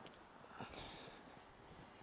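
Near silence: faint outdoor background, with one brief faint sound about half a second in.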